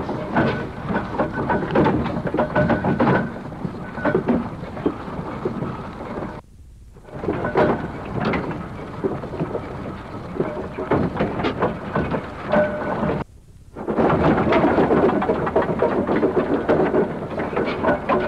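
A heavy vintage road vehicle running, giving a dense rumbling clatter. The sound drops out briefly twice, about a third and two-thirds of the way through.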